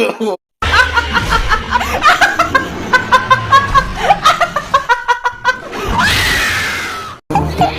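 Rapid bursts of laughter in short pulses, with a long falling squeal near the end that cuts off sharply.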